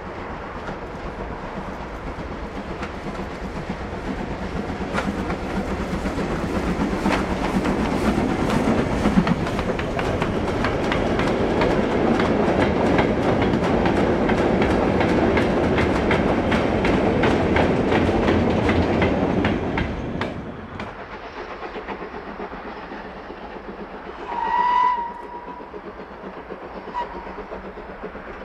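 Stanier 8F steam locomotive 48624 working a goods train past at close range: exhaust and the wagons' wheels clicking steadily over the rail joints, growing louder as the train goes by. After a sudden drop, Ivatt Class 2MT 46521 is heard more quietly on the approach with its goods train, and a steam whistle gives one short blast about three-quarters of the way through, then a faint brief peep.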